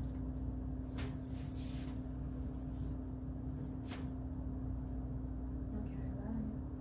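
A steady low hum with two brief clicks, about one and four seconds in.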